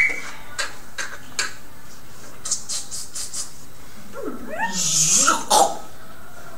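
A performer's non-word vocal sounds: a few soft clicks and hisses, then about four seconds in a drawn-out cry that slides down and back up in pitch, animal-like.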